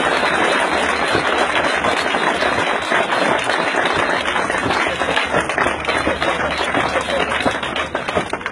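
A group of people applauding, many hands clapping steadily together, with some voices mixed in.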